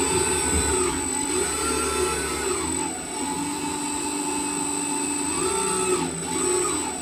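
Brushless electric motor of an RC model airboat spinning its 9x6 propeller. It makes a steady whirring whine whose pitch rises and falls several times as the throttle is opened and eased off.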